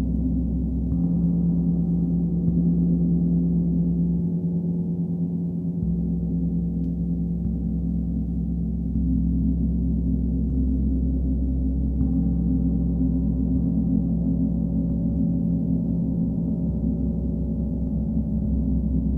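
Two large hammered gongs played with soft felt mallets, giving a continuous, layered wash of deep, sustained overtones. New strokes swell the sound about a second in and again about twelve seconds in.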